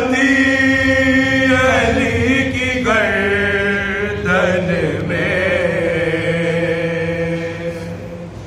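A man chanting a marsiya, a Shia mourning elegy, in long drawn-out notes that step to a new pitch every second or two, with a wavering vibrato on some of them.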